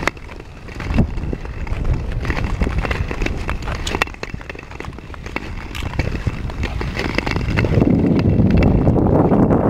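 Ice skate blades scraping and clicking on frozen lake ice as skaters stride, with wind rumbling on the microphone that grows louder in the last couple of seconds.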